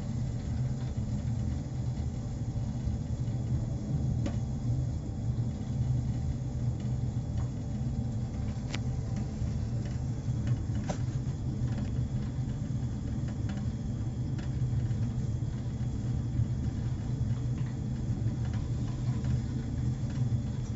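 Steady low rumble and hum of an Atmos wood-gasification boiler running while it gasifies a fresh load of wood, with a few faint ticks.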